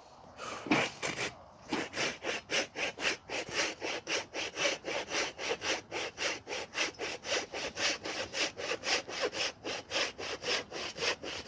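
Hand saw cutting through a firewood log, its blade rasping through the wood in quick, even strokes, about four a second, after a few uneven starting strokes.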